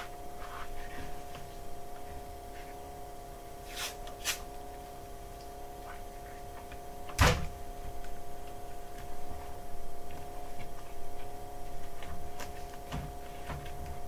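Paper masking tape being unrolled, torn and pressed on by hand: two short sharp rips about four seconds in, a single loud knock about seven seconds in, and a few lighter handling clicks near the end, over a steady background hum.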